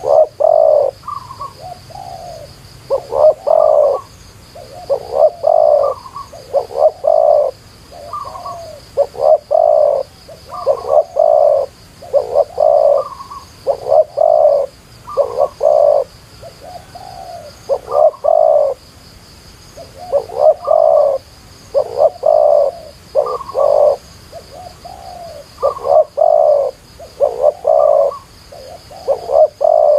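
Spotted dove cooing loudly in short phrases of a few coos each, repeated every second or two with only brief gaps.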